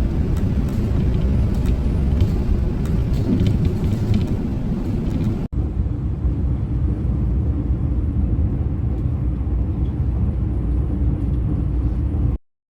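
Steady, loud low rumble with a few faint clicks in the first half, broken by a split-second gap about halfway through and cutting off abruptly near the end.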